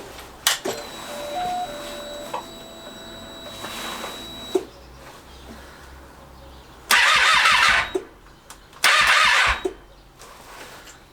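The 2012 Triumph Street Triple 675R's ignition clicks on and its fuel pump hums steadily for about four seconds while priming. Then the starter motor cranks in two short bursts of about a second each, and the engine does not fire.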